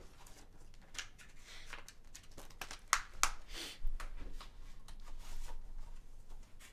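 Hands handling plastic Blu-ray cases and a cardboard slipcover on a wooden table: scattered light clicks and rustles, with two sharper clicks about three seconds in.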